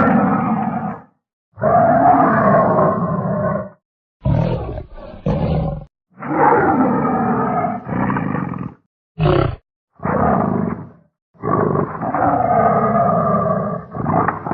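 Big-cat roars and snarls used as Dinofelis creature sound effects, built from leopard and tiger recordings: about nine separate calls, some short and some drawn out over two seconds, each cut off into dead silence before the next.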